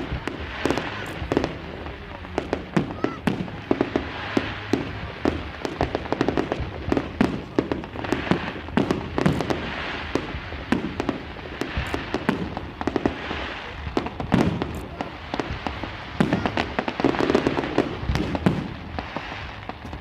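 Fireworks going off in a dense, continuous run of sharp bangs and crackling pops, several a second, with people's voices underneath.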